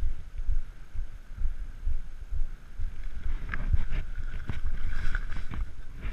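Wind buffeting the camera's microphone in uneven gusts; from about three seconds in, a run of sharp clicks and rattles as the mountain bike is handled on gravel.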